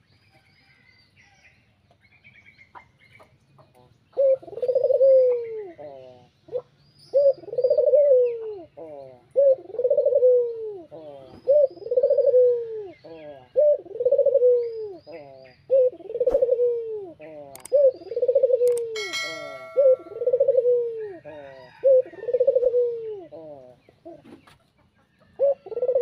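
A caged ringneck (Barbary) dove, the 'burung puter', cooing over and over, starting about four seconds in and repeating roughly every two seconds. Each call is a short note run into a longer coo that falls in pitch at the end. Other small birds chirp faintly.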